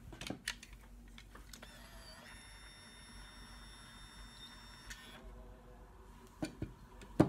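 Conair Curl Secret automatic curler's small motor whining steadily for about three and a half seconds as it draws a section of hair into its curling chamber. Handling clicks come before and after it, and the loudest is a sharp knock near the end.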